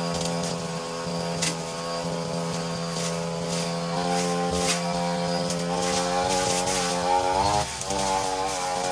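Petrol brushcutter engine running at high speed while cutting grass, with sharp ticks now and then; about three-quarters through it briefly drops in pitch and picks back up.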